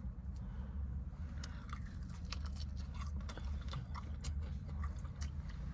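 A person chewing a mouthful of sauced fried chicken close to the microphone, with many small crunches and wet mouth clicks.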